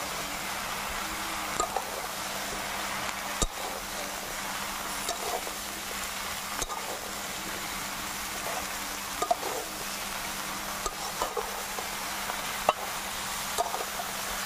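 A flat metal spatula stirring chunks of bottle gourd in a metal karai, with irregular clicks and scrapes against the pan over a steady sizzle of hot oil.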